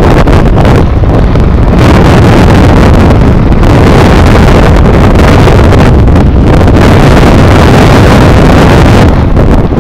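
Strong wind buffeting the microphone: a loud, steady rumbling roar that swells and eases with the gusts.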